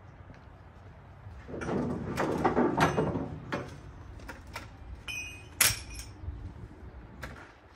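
Yellow ratchet tie-down straps being pulled off an engine crate, a loud clattering rustle with many sharp clicks, then a brief metallic ring and a single sharp clack as the straps and their metal ratchet are dropped onto the pavement.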